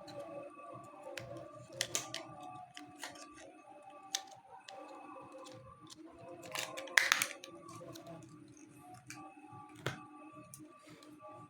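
Steady background music, with scattered sharp clicks and snaps from handling small parts of the notebook. The loudest cluster of clicks comes about seven seconds in, and another single click near ten seconds.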